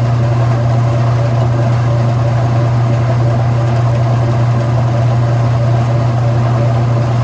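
Whirlpool Direct Drive top-load washing machine spinning with a steady low hum, running as it should.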